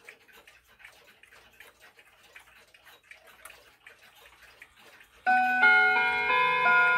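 Faint ticking of clocks, then about five seconds in a mantel clock begins chiming: clear ringing notes stepping through a tune, set off by its minute hand being turned to the half hour.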